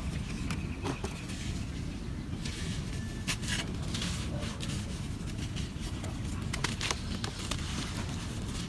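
Dry clumps of black charcoal sand crumbling and breaking apart: irregular crisp crackles and crunches over a steady low rumble.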